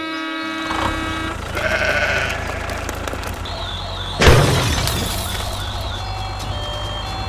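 Dubbed sound effects: a sheep bleating at the start, then a steady low tractor-engine rumble. A short warbling siren comes just before a loud sudden whoosh about four seconds in, and short repeated beeps near the end.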